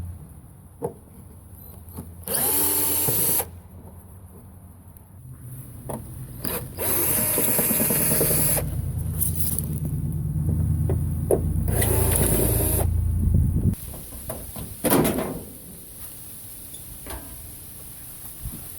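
Power drill running in bursts, its motor whine rising and falling: a burst of about a second, a long run of several seconds, then a short burst, typical of unfastening bolts during truck disassembly.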